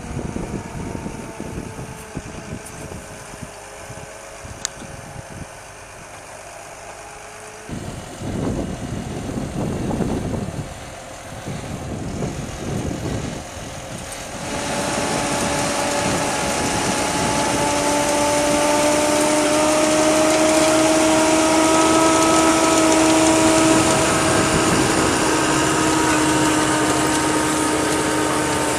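New Holland tractor running as it pulls a Grimme CS 150 Combi Star clod and stone separator through the soil. The sound changes abruptly twice. From about halfway through it is louder, with a steady whine of several tones from the working machinery.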